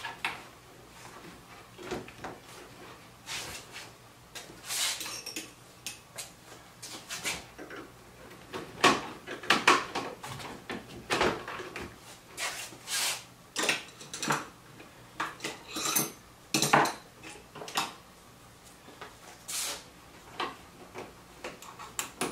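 Irregular clicks, knocks and light rattles of interior trim pieces being handled and fitted back into a 2002 Mazda Miata's cabin, with short scrapes and rustles in between.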